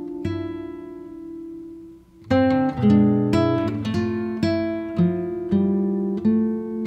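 Background music on plucked acoustic guitar. A chord rings out and fades, then after a brief pause a run of single plucked notes follows, each ringing and dying away.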